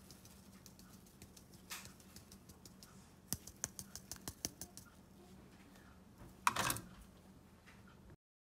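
A small plastic sieve handled and tapped over a dessert bowl: a quick run of light clicks, then a short louder noise near the end.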